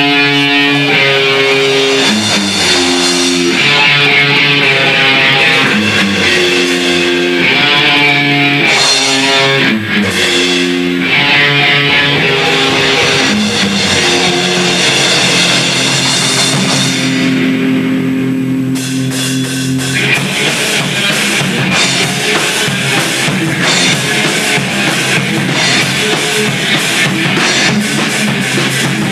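Grindcore band rehearsing live: an electric guitar riff with drums, its notes clearly changing, then about twenty seconds in the band switches to a denser section with fast, constant drum strikes.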